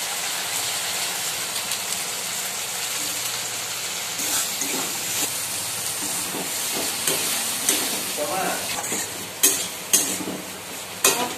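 Chickpeas frying and sizzling in a steel kadai while a metal spatula stirs them, a steady hiss. Near the end come a few sharp clinks of the spatula against the pan.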